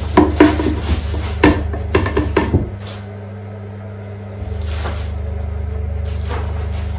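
A round bat knocking and clattering as it is seated onto a potter's wheel head, a quick series of hard knocks in the first two and a half seconds. Under it a steady low electrical hum cuts out about three seconds in and returns a second and a half later.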